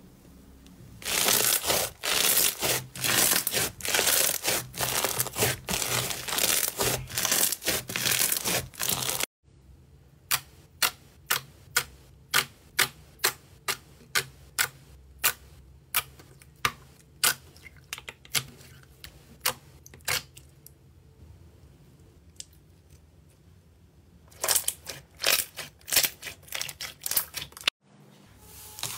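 Hands squishing and pressing slime, making dense wet crackling, then a steady run of sharp separate pops as air bubbles in clear bubble slime are pressed and burst, then more crackling near the end.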